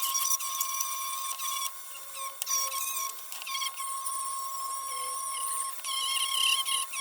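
Rotary tool spinning an 800-grit nylon abrasive bit against the heater's sheet metal: a steady high motor whine under a wavering, scratchy squeal that changes as the bit is pressed and moved.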